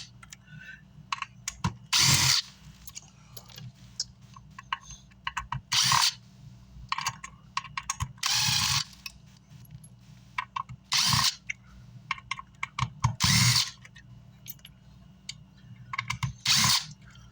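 Cordless electric screwdriver or drill running in six short bursts, backing screws out of an amplifier's casing. Small clicks of screws and parts being handled come between the bursts.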